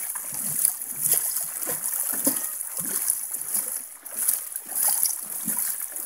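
Shallow creek water sloshing and splashing around someone's feet as they wade over the rocks, in an uneven rhythm, over the creek's running water.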